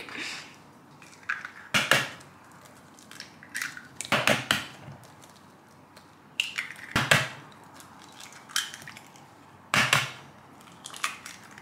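Eggs being cracked open one after another into a plastic mixing bowl: about four sharp cracks two to three seconds apart, with lighter shell clicks between.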